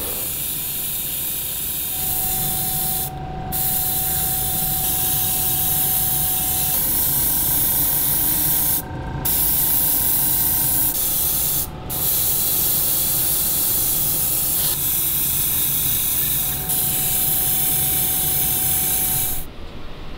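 Paint sprayer hissing steadily as primer is sprayed in long passes, with short breaks about 3, 9 and 12 seconds in, and a faint steady whistle under the hiss; it stops shortly before the end.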